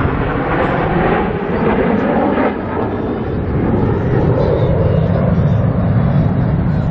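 Jet noise from a formation of F-16 fighter jets flying over, a steady rumble that grows a little louder after about three seconds.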